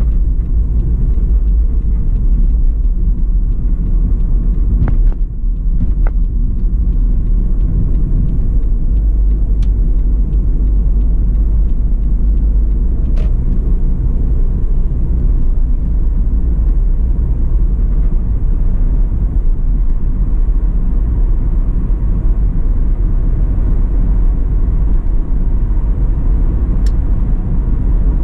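Car being driven, heard from inside: a steady low rumble of engine and road noise, with a few brief clicks.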